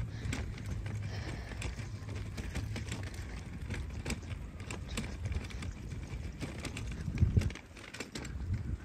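A baby stroller pushed along a concrete footpath: its wheels rolling and the walker's footsteps give irregular light clicks and taps over a low rumble, with a louder bump about seven seconds in.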